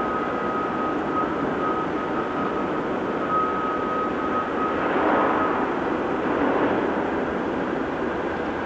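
Heavy earthmoving machinery running, a steady diesel engine noise with a thin high whine over it that drops out about five and a half seconds in. A brief swell of louder noise comes around five seconds in.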